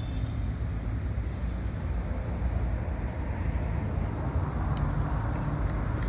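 Road traffic noise: a steady, fluctuating rumble of passing vehicles.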